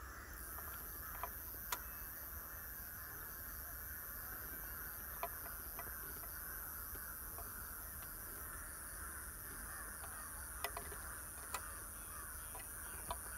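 Crows cawing over a steady outdoor background hiss, with a few sharp clicks scattered through.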